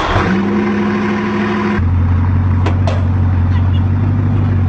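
Steady mechanical hum of a motor, which about two seconds in steps down to a deeper, louder drone that holds steady, with two brief clicks a moment later.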